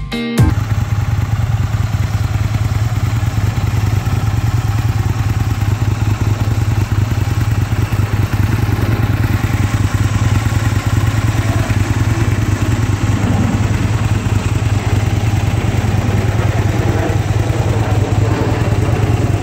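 2004 Aprilia Tuono 1000's 998 cc V-twin engine idling steadily.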